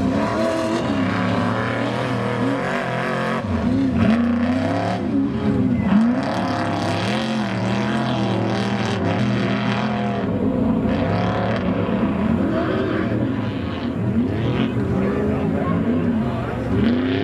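Desert race truck engine running hard and revving up and down over and over, its pitch rising and falling every second or two.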